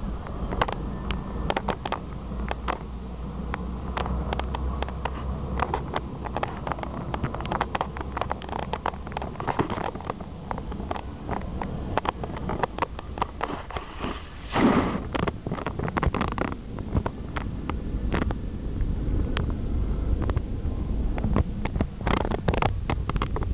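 Running noise of a moving vehicle heard from inside: a low rumble with frequent sharp clicks and knocks. A steady low hum stops about nine seconds in, and a brief loud rush of noise comes about fourteen seconds in.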